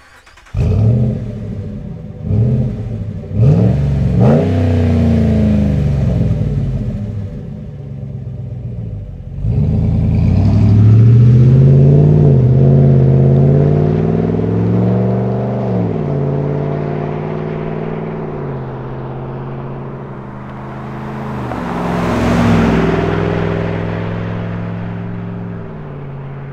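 Exhaust of a 5.7 L Hemi V8 through an MBRP high-flow oval muffler with dual outlets: the engine fires up with a loud flare and is blipped a few times. About nine seconds in it pulls away hard, its pitch climbing and dropping back at each upshift, then fades as it drives off. It swells once more near the end before fading again.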